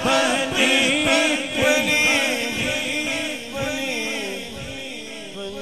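A man's solo voice singing an Urdu naat into a microphone, drawing out one long ornamented phrase that gradually gets quieter toward the end.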